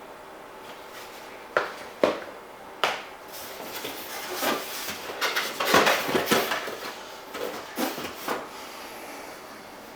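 Airbrush kit packaging being handled: three sharp clicks or knocks, then several seconds of uneven rustling and scraping as items are moved in and out of the box.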